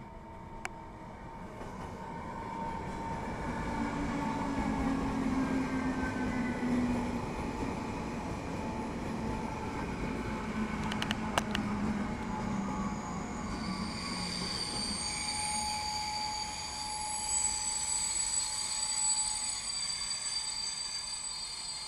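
Electric multiple-unit passenger train passing close by, its running noise building over the first few seconds and then holding. There are a few sharp clicks near the middle, and high-pitched wheel squeal in the second half as it runs away.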